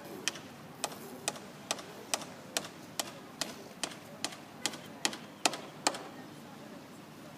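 A steady run of sharp taps on a hard surface, a little over two a second, growing louder and then stopping about six seconds in.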